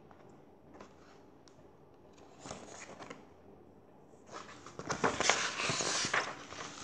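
A paperback picture book is handled close to the microphone: its pages rustle and crackle. There are a few soft clicks at first, a brief rustle, then louder, steady rustling for the last couple of seconds.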